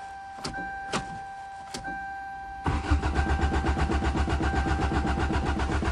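A steady warning chime tone with a few clicks, then about 2.7 s in the Toyota GT-S's starter motor begins cranking the engine in an even, rapid rhythm without it catching. The owner suspects a stuck fuel pump is keeping it from starting.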